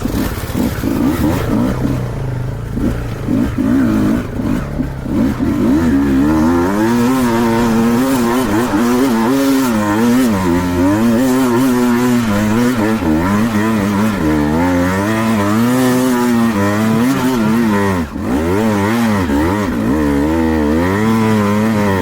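Two-stroke single-cylinder dirt bike engine being ridden. It revs up and down over and over, its pitch rising and falling about once a second, with a short drop in revs near the end.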